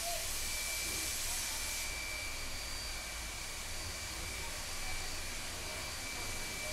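SNCF 141R 840 steam locomotive hissing steam steadily, with a thin high whine and a low rumble underneath; the hiss eases about two seconds in.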